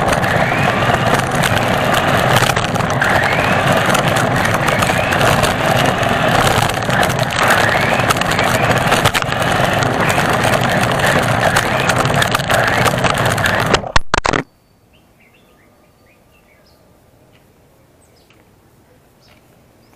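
Onboard sound of a radio-controlled car driving over rough concrete: a loud, steady rush of tyre and drivetrain noise with a faint whine that rises and falls with speed. About fourteen seconds in a sharp knock comes as the car crashes and flips over, and the sound cuts off abruptly to quiet with faint chirps.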